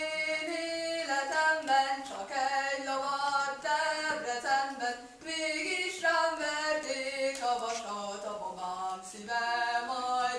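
A young woman singing a Hungarian folk song solo and unaccompanied: held notes moving from pitch to pitch, with brief pauses for breath.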